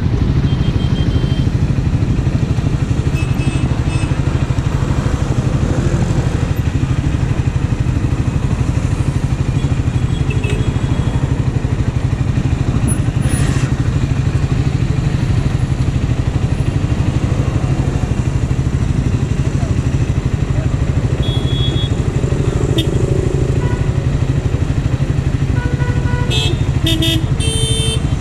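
Triumph Scrambler 400's single-cylinder engine idling steadily at a standstill, under the hum of surrounding city traffic. A few short horn beeps from other vehicles sound near the end.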